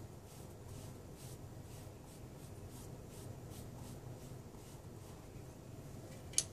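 A flat paintbrush stroking liquid pointe shoe hardener onto the underside of a satin pointe shoe: faint, quick, scratchy swishes, two or three a second, that stop about five seconds in. A single sharp click near the end.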